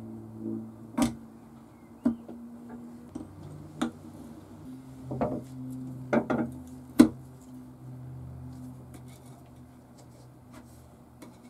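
Steel blade, chip breaker and lever cap of a restored Hi-Craft No. 4 cast-iron hand plane clicking and knocking against the frog and body as they are seated. There are about seven sharp metal clicks, two close together just after six seconds in, and the loudest about seven seconds in.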